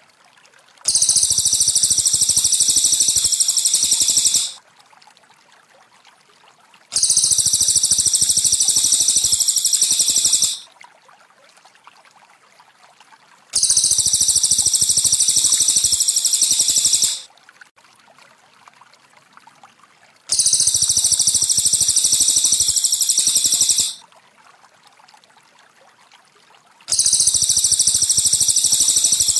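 Cililin songbird song: a rapid, high-pitched trill lasting about three and a half seconds, repeated five times at even intervals as a looped training recording. A faint trickle of water runs underneath between the songs.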